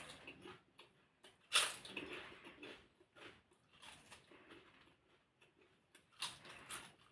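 A person eating close to the microphone, chewing with irregular wet mouth sounds. The loudest sharp strokes come about a second and a half in and again about six seconds in.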